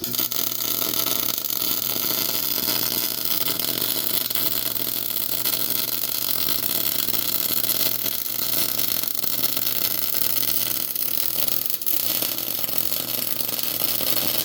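MIG welding arc running one continuous bead on 3/8-inch steel flat bar: a steady crackling hiss with a low hum underneath, starting abruptly and cutting off suddenly when the trigger is released after about fourteen seconds.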